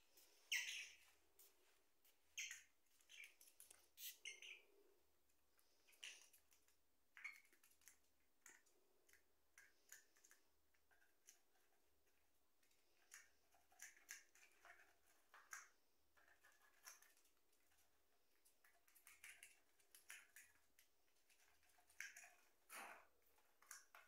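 Faint, scattered short chirps and small clicks from small pet parrots, a lovebird and a red-rumped parrot.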